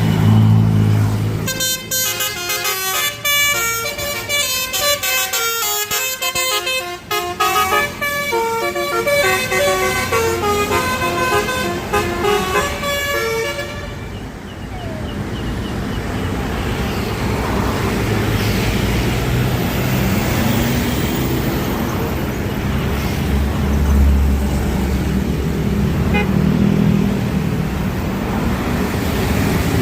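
Basuri telolet multi-tone air horn on a bus playing a fast melody of stepping notes for about twelve seconds. After that comes the steady rumble of the bus engine and road noise.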